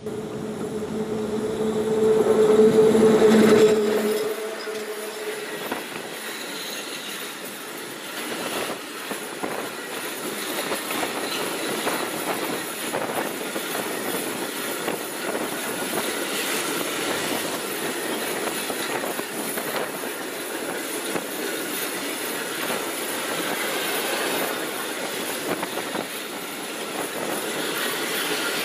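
Škoda 59E (class 182) electric locomotive passing close by with a loud steady hum for the first few seconds. It is followed by a train of cement tank wagons rolling past, their wheels clicking regularly over the rail joints.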